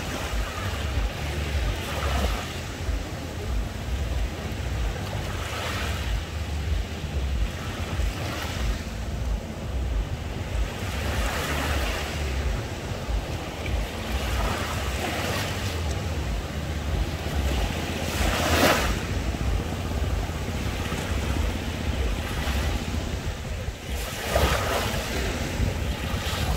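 Small sea waves breaking and washing up the beach every few seconds, over a steady low rumble of wind on the microphone.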